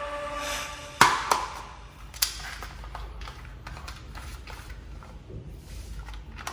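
A few sharp clicks or knocks, the loudest about a second in, a second just after it and a third about two seconds in, then fainter scattered ticks.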